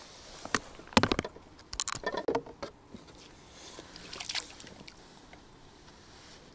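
Water splashing and sloshing as a hooked fish is drawn in and scooped up in a landing net. Several sharp knocks and clicks from handling the tackle fall in the first three seconds, the loudest about a second in.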